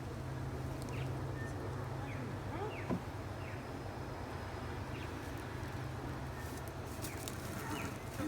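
Steady low hum of honeybees buzzing around an open hive, with birds giving short falling chirps and a brief knock about three seconds in.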